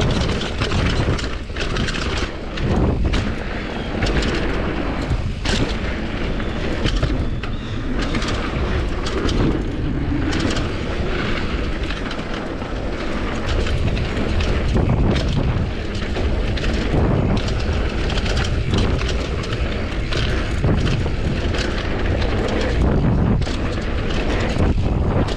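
Downhill mountain bike, a Commencal Supreme DH, ridden fast down a dirt trail: steady wind rush with a low rumble on the action camera's microphone, tyre noise, and frequent sharp clacks and rattles from the bike over the bumps.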